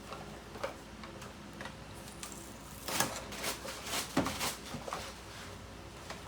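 Light clicks and knocks of kitchenware being handled, a cluster of them about three to five seconds in, over a faint steady hum.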